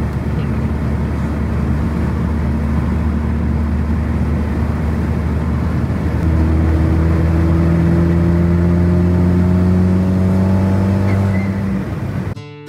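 Volkswagen Jetta GLI's turbocharged four-cylinder, fitted with a big aftermarket turbo, heard from inside the cabin while cruising at highway speed. About six seconds in it gets louder and its pitch rises slowly as the car accelerates, until guitar music cuts in just before the end.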